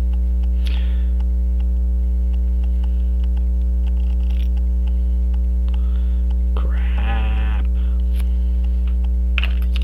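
Loud, steady electrical mains hum with a stack of evenly spaced overtones, running under everything. About seven seconds in a short wavering voice sound rises over it, followed by a couple of faint small clicks.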